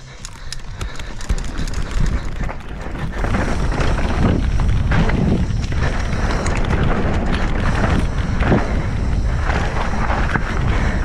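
Mountain bike riding down a rocky dirt trail: tyres crunching over dirt and loose stones, with the chain and frame rattling in many short clicks and knocks and wind buffeting the camera microphone. It gets louder over the first few seconds.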